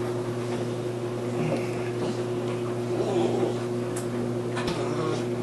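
A steady low electrical hum, with a couple of small clicks near the end.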